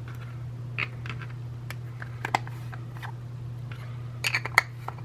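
Light clicks and taps of small art supplies being handled on a table, scattered and a little quicker about four seconds in, over a steady low hum.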